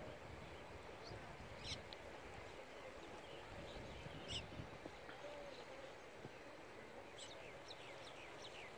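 Birds chirping in short, high, falling calls, once about two seconds in, again about four seconds in, and in a quick run near the end, over a faint steady outdoor rush.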